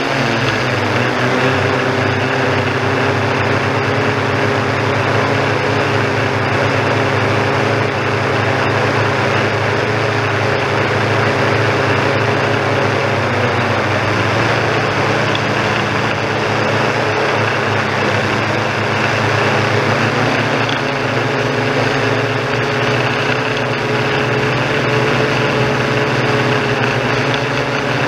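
Yuneec Typhoon G quadcopter's motors and propellers running steadily in flight, a constant multi-tone hum over a hiss. Its pitch drifts slightly, wavering around the middle and settling again later. It is heard close up, as from the drone itself.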